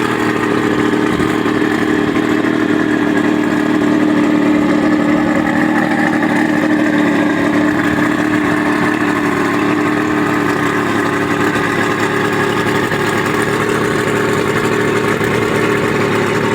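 90 hp Mercury outboard motor running steadily at idle.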